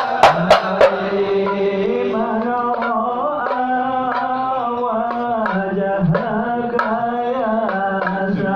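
Hand drums struck hard a few times in the first second, then a long, ornamented devotional melody sung over lighter drum beats: sholawat singing at a Maulid gathering.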